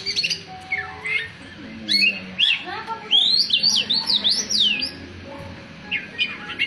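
Oriental magpie-robin (kacer) singing: a string of varied chirps and whistles, with a quick run of rising-and-falling notes about three seconds in.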